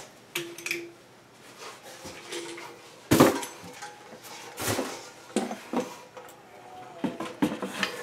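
A series of knocks and clinks as a ceiling fan, motor housing and blades attached, is handled and set over its cardboard box. The loudest knock comes about three seconds in.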